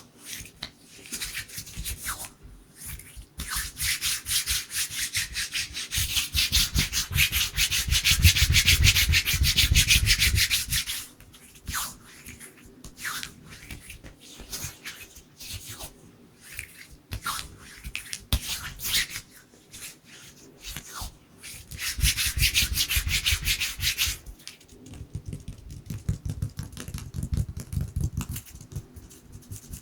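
Dry hands rubbing together quickly, skin on skin, close to the microphone. There are two long stretches of fast rubbing, the first and longer one ending about 11 seconds in and a short one near 22 seconds, with scattered single swishes and light taps between.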